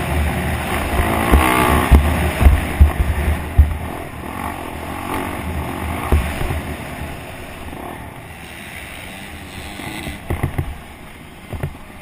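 Dirt bike engine ridden around a motocross track, revving up and down over the first few seconds and then settling to a lower, steadier drone. Several low thumps come in the first few seconds and again near the end.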